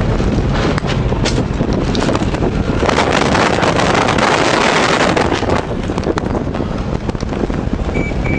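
A police car driving fast over a dirt airstrip, heard from inside the car: engine and tyre rumble with wind buffeting the microphone, loudest about three to five seconds in. Two short high beeps come at the very end.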